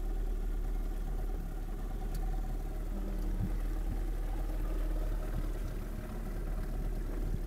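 Boat engine running steadily at low, idle-like speed, a constant low rumble with a faint steady hum above it.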